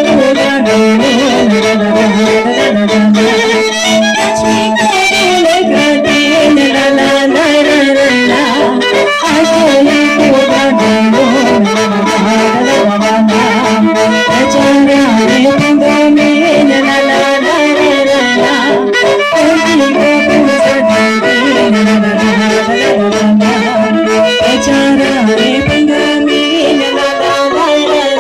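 Romanian traditional folk music playing continuously, a fiddle-led melody with accordion.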